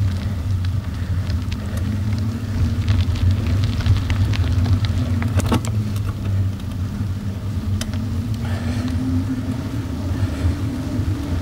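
Car driving steadily on a gravel road: a continuous low engine hum and tyre rumble, with scattered sharp ticks from loose stones under the tyres.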